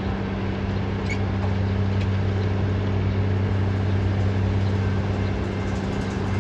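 Idling engine giving a steady, even low hum.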